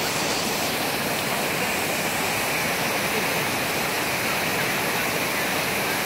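Waterfall: water sliding and splashing down a steep bare rock face, a steady rushing noise that does not let up.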